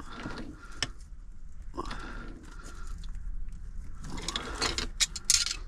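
Clicks and scraping of something being twisted by hand, with a louder stretch of scraping and rustling near the end.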